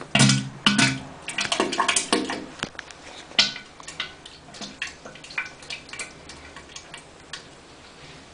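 Music ends in the first second or so. A scatter of light, irregular clicks and clinks follows, thinning out and fading over several seconds.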